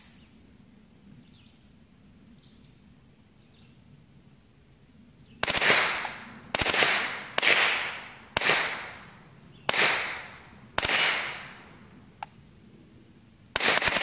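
Smith & Wesson M&P15-22 .22 LR rifle fired seven times at an uneven pace, roughly a shot every second with a longer pause before the last, starting about five seconds in; each report is sharp and rings off quickly.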